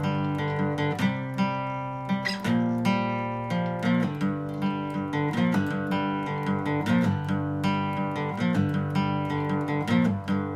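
Background music led by acoustic guitar, picked and strummed in a steady rhythm.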